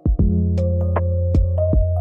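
Background music: electronic track with sustained synth chords, a steady bass and a regular beat.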